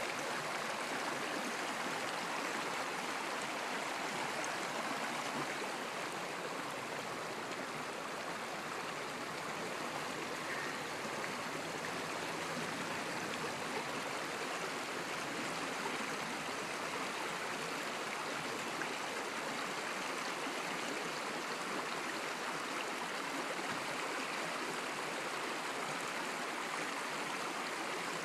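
Shallow rocky stream rushing and splashing over stones: a steady, unbroken water noise.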